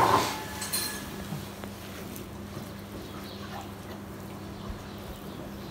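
A single short clink right at the start, then quiet room tone with a faint steady hum.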